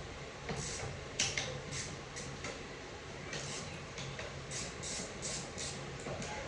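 Ratchet with a T40 Torx bit clicking in short runs as the transmission oil pan bolts are backed out, over a steady low hum.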